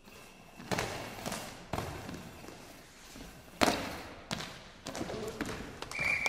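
Goalball with bells inside, rolling and bouncing across a hard sports-hall floor in several sharp thuds, mixed with the thumps of players diving onto the floor to block it. A referee's whistle sounds near the end, signalling a goal.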